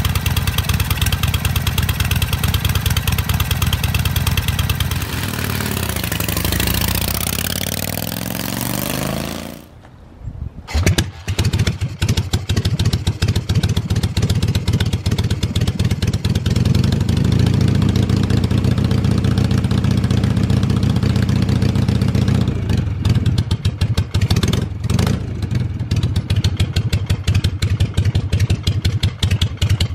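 Harley-Davidson Shovelhead V-twin engines running. The first engine runs, its revs dip and rise again, and it cuts off just before ten seconds in. A second Shovelhead is then kick-started, catches after a second or so and idles steadily with a rapid pulsing beat.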